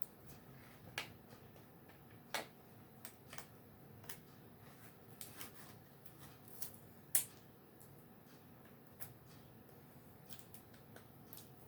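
Fingernails picking and scraping at the sealing label on a plastic CD jewel case: scattered faint clicks and scratches, the loudest about seven seconds in.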